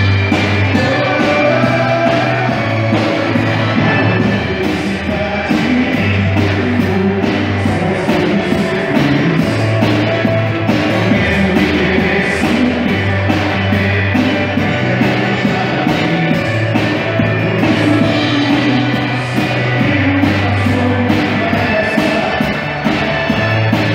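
Live band music: a singer with violin over a steady bass line and beat, a cover of a Brazilian sertanejo pop song.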